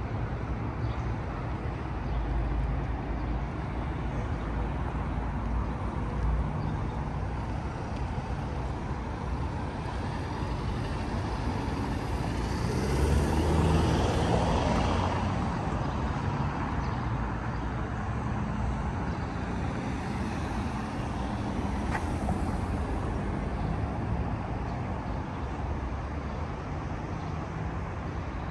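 City street traffic: a steady wash of passing cars, with one vehicle going by closer and louder about halfway through.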